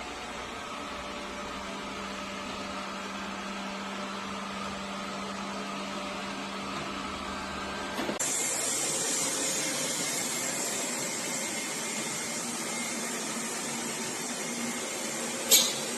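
Robot vacuum cleaner running with a steady motor hum and suction hiss. Halfway through the sound changes abruptly to a brighter hiss, and a short sharp sound comes near the end.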